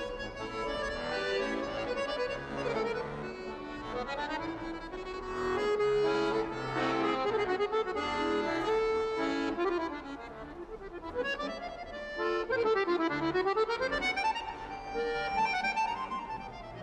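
Piano accordion playing a melody with chords, with a quick run of notes sweeping down and back up a little past the middle.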